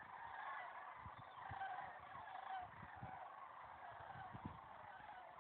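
A flock of sandhill cranes calling in flight overhead, many birds at once in a continuous overlapping chorus. A few soft low thumps sound in the middle.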